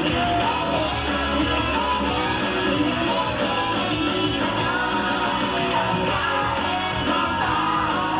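Rock band playing live, a singer's voice over a full, continuous band backing.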